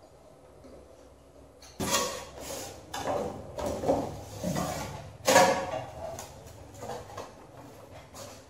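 Foam-board and balsa model-plane fuselage squeaking and scraping as it is handled and turned over: a string of irregular rubbing noises beginning about two seconds in and easing off after about six seconds.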